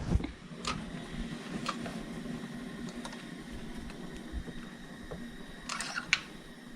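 Scattered light clicks and taps of a socket wrench and extension turning out a spark plug, with a small cluster of clicks near the end, over a faint steady hum.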